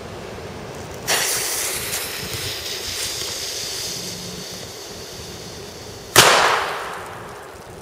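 Comet Super Böller 1 firecracker: its fuse catches about a second in and hisses steadily for about five seconds. The cracker then goes off with a single loud bang that dies away over about a second.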